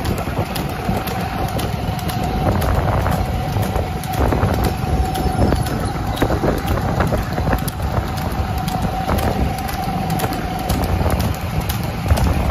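Wind buffeting the microphone over a motorcycle running along the road at speed, with a steady high hum through most of the stretch and scattered sharp clicks and knocks.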